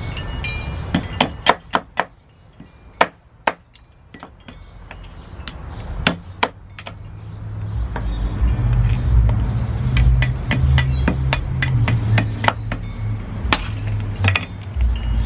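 Cleaver striking crab on a wooden tree-stump chopping block: a string of sharp, irregular knocks, sparse at first and more frequent in the second half. A low rumble comes in partway through.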